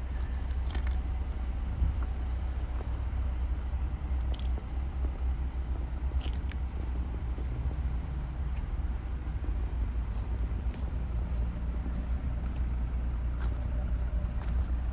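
Mercedes-AMG GLE 43's 3.0-litre biturbo V6 idling steadily with a low rumble, vapour showing at the exhaust. A few crunching footsteps on gravel are heard as the car is walked around.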